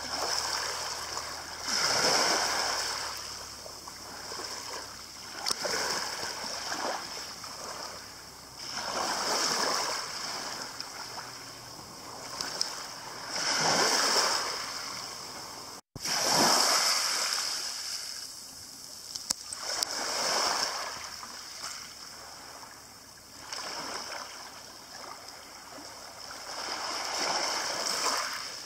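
Small waves breaking at the edge of a pebble beach and washing over the stones, each wash swelling and fading every few seconds. The sound drops out for an instant about halfway through.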